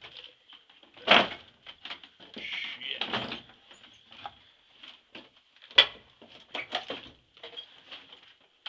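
Irregular knocks and scuffs, with a sharp bang about a second in and another near six seconds, and a stretch of rustling between them.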